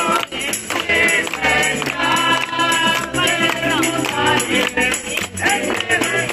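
Live band playing: a man singing through a hand-held acoustic cone megaphone, over upright double bass and drums, with hands clapping along.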